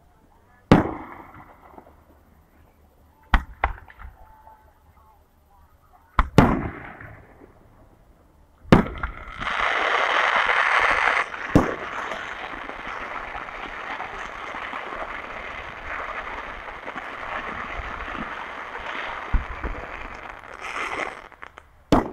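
Aerial fireworks shells bursting: sharp bangs every few seconds, then from about nine seconds in a long, dense, continuous crackle with more bangs as several shells go off together.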